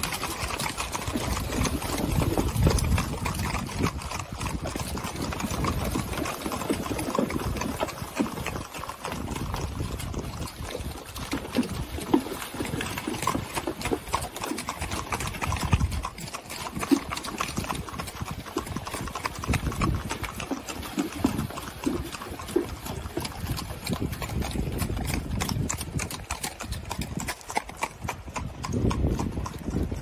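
Icelandic horses' hooves splashing through a shallow stream and clopping on stony ground, an uneven run of hoof knocks over the sound of running water.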